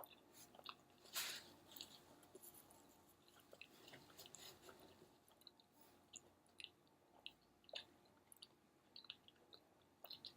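Faint chewing: a person eating, with scattered soft mouth clicks and small crunches, one slightly louder about a second in.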